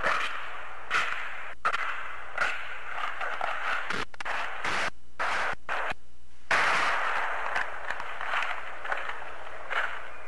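Hiss and crackle of old VHS tape playback: steady noise broken by irregular pops, with the hiss cutting out briefly a few times near the middle, over a faint low hum.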